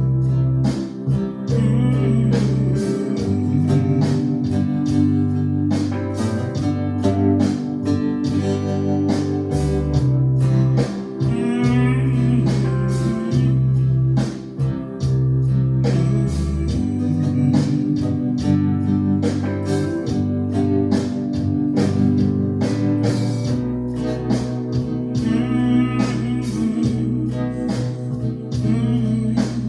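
Blues music led by guitar over a held bass line and a steady drum beat, with wavering, bent notes now and then.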